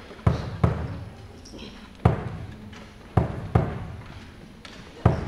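Hand drum struck in a slow, spaced rhythm: six deep strikes, mostly in pairs about a third of a second apart, each ringing out briefly.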